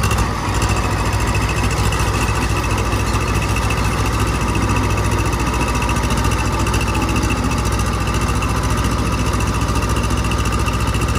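Tractor diesel engine running loud and steady at a constant pitch.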